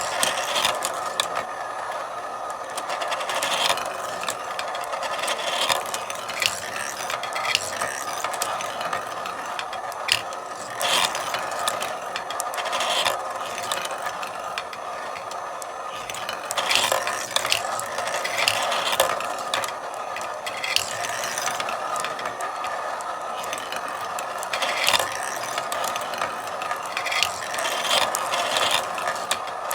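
Marbles rolling and clattering through a marble run: a continuous rolling rattle with frequent sharp clicks as marbles knock against the track and each other.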